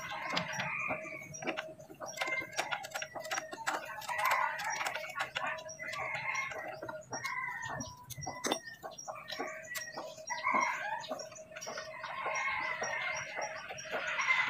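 Chickens clucking, with scattered sharp metallic clicks and taps of hand tools on the truck's axle hardware.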